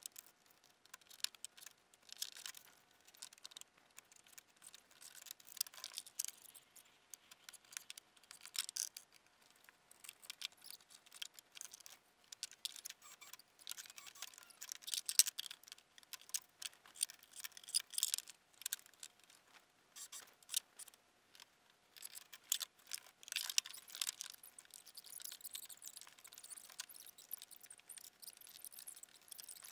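Faint, irregular light clicks and rattles in scattered clusters, over a faint steady hum.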